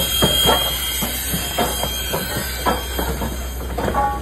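Strasburg Rail Road No. 89, a 2-6-0 steam locomotive, rolling slowly past at close range: irregular metallic clicks and clanks from its wheels and running gear, often in pairs, over a steady low rumble. A brief high tone near the end.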